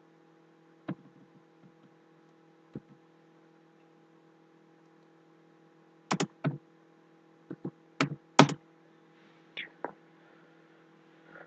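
Computer keyboard keystrokes: a couple of single taps, then a quicker run of clicks over the middle and later part, over a steady low hum.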